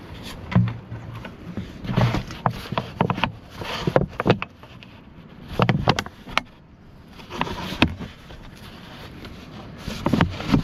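Irregular metallic clanks, clicks and scrapes of hand tools and engine parts being handled on a tiller engine during an oil change, with the engine not running.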